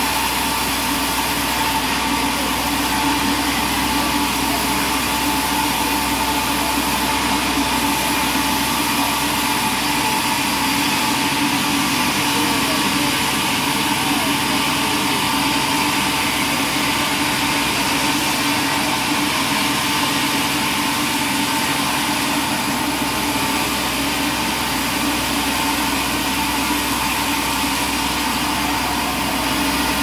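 Large stationary sawmill saw running steadily while it rips a log lengthwise, a constant mechanical drone with a steady whine on top.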